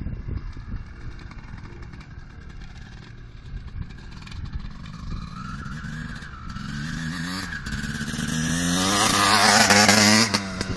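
Motocross dirt bike engine approaching across a field, getting louder and rising in pitch as the rider accelerates, loudest as it comes close near the end, then dropping off suddenly.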